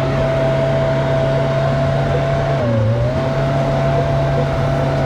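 Cat backhoe loader's diesel engine running hard under load, pulling up a steep grade in second gear. About three seconds in, its pitch sags briefly as it struggles, then recovers.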